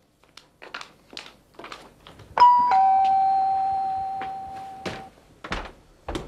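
Two-tone electric doorbell chime, 'ding-dong': a short higher note, then a lower note that rings on and fades over about two and a half seconds. A few soft taps come before it, and two dull thuds near the end.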